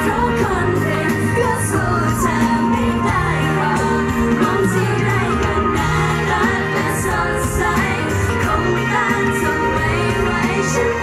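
Live pop song: a female vocalist singing into a handheld microphone over amplified backing music, heard through the concert sound system.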